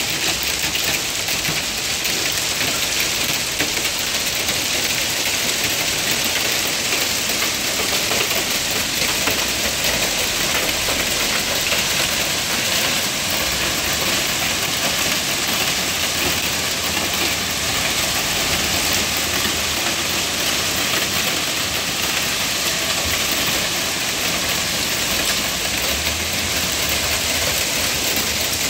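Hail and rain falling steadily on pavement and parked cars: a dense, even hiss of countless small impacts.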